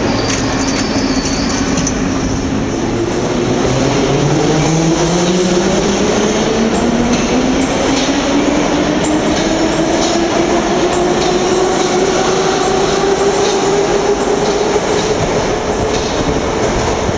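Vintage Moscow Metro train pulling away and accelerating along the platform: its electric traction motors whine steadily higher in pitch over a loud running rumble. From about six seconds in the wheels click over the rail joints.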